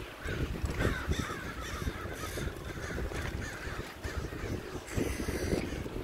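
A flock of crows calling, many caws overlapping, over a steady rumble of wind and bike tyres on a dirt trail.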